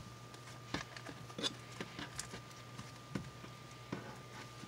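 Soft pink slime with lotion mixed in, squeezed and folded by hand, giving small irregular wet clicks and pops, about five in all, over a faint steady hum.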